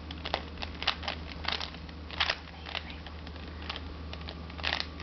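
A Rubik's cube being turned quickly by hand: an irregular run of sharp plastic clicks and clacks as its layers are twisted, over a steady low hum.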